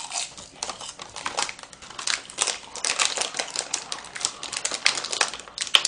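Plastic food packet crinkling as it is handled and pulled open by hand: a rapid, dense crackle that gets busier about two seconds in.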